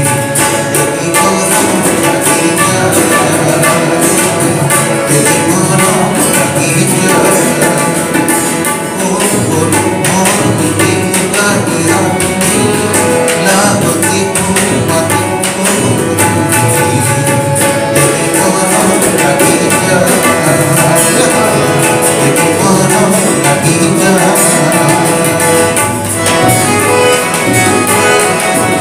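A man singing a song to his own harmonium, with tabla drums and a guitar accompanying him.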